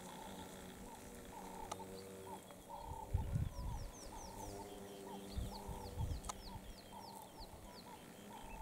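Dung beetles buzzing in flight: a low humming drone, with heavier low rushes as beetles pass close to the microphone, loudest about three seconds in and again around five and six seconds. Birds call over it, one with a short note repeated over and over, and a run of quick high descending chirps in the middle.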